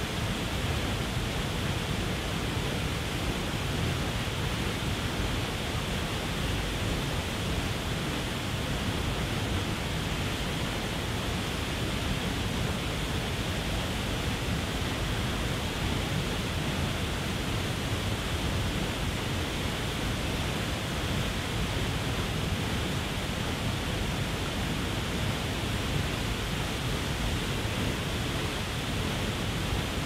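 Waterfall pouring over a dam: a steady, unbroken rush of falling and splashing water.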